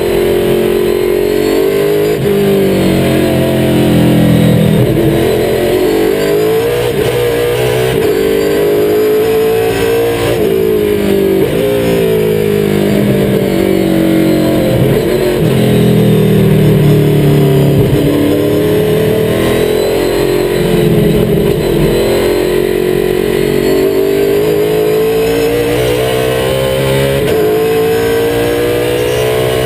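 NASCAR stock car's V8 engine, heard from the driver's footwell at speed, revving up through the gears and falling off again several times as the car brakes and downshifts for the corners of a road course.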